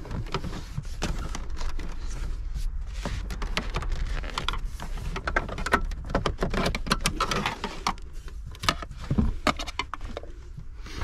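Plastic fuse-box cover on the side of a car's center console being pried loose by hand. Irregular clicks, scrapes and knocks as its retaining pins pop out.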